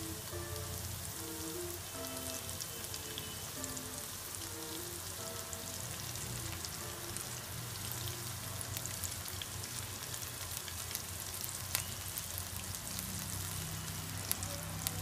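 Flour-coated chicken pieces deep-frying in oil in a pan: a steady sizzle with fine crackling throughout.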